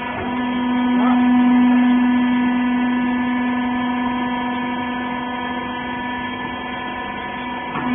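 Hydraulic bagging baler's power unit running, a steady pitched hum with a tone that swells slightly about a second in and then holds.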